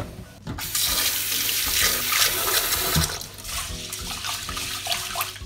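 Tap water running into a steel pot of washed rice in a stainless steel sink, filling it for another rinse. The flow starts about half a second in and eases off about three seconds in.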